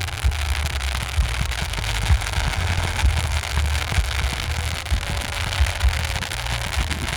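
Fireworks display: dense, continuous crackling over a steady low rumble, with no single loud bang.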